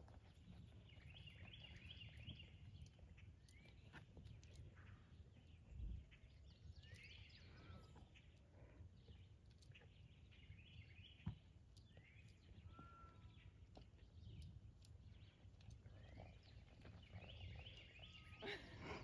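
Near silence with faint wild birdsong: short chirping phrases repeated every few seconds over a low steady rumble. A soft thump comes near six seconds in and a sharp click near eleven.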